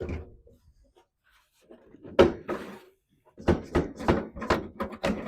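Heavy metal clunks and knocks as the old truck cab is worked loose while it is still hung up on something. There is one sharp bang about two seconds in, then a quick run of knocks near the end.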